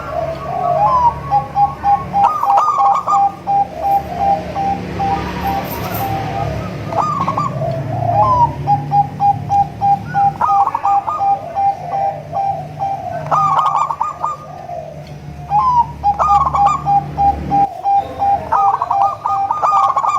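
Zebra dove (perkutut) song: cooing phrases repeated about every three seconds, each joined to the next by a fast, even run of notes. A low hum runs underneath and stops about three-quarters of the way through.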